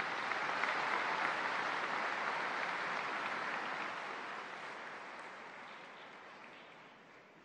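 Large audience applauding, swelling at the start and slowly dying away.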